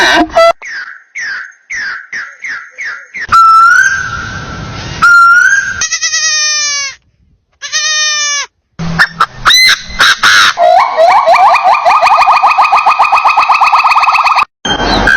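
A series of different animal calls joined with abrupt cuts: a run of short falling calls, then bleat-like held calls, then a fast run of rapid repeated notes near the end.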